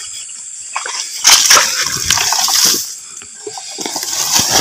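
Shallow swamp water splashing and sloshing as a hand pulls a PVC-pipe eel trap out from among the grass. The splashing starts a little over a second in, eases briefly around three seconds, then picks up again.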